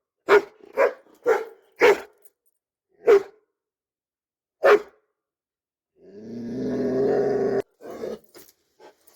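Doberman barking six times in short, sharp barks, four in quick succession and then two more spaced out. About six seconds in comes a longer, steady, pitched sound lasting about a second and a half, which cuts off suddenly.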